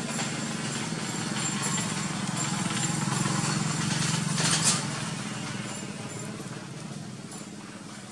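Steady low drone of a small engine running, with one short sharp click about halfway through.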